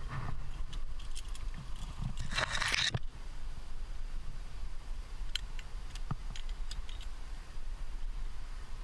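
Climber's metal rack of cams and carabiners clinking on the harness in a few light clicks, with one brief scraping rustle about two and a half seconds in, over a low steady rumble.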